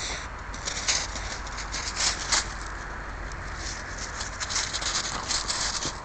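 Laekenois puppy rooting in snow with its nose and paws: a string of short, irregular scuffs and snuffles, a few louder ones about one and two seconds in and a busier run near the end.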